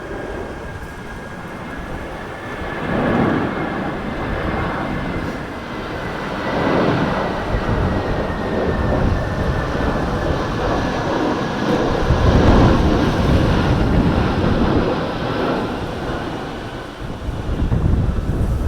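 Airbus A320's CFM56 jet engines on a landing approach: a steady high whine that sinks slightly in pitch over a deep rumble, growing louder about twelve seconds in, with strong wind gusting on the microphone.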